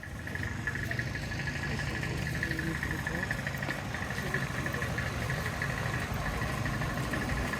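Car engine running steadily, heard from inside the car, with a steady high buzzing over it.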